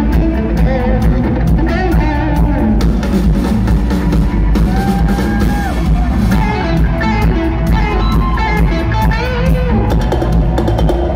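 Rock band playing loud and live: a drum kit hitting throughout, with bending, wavering lead lines from electric guitar over it.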